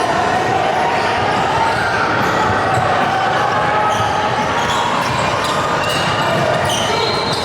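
A basketball being dribbled amid the steady din of players and spectators in a gymnasium, echoing in the large hall.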